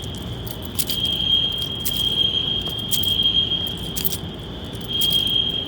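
Fire alarm sounder giving a steady, high-pitched electronic tone, with sharp clicks about once a second.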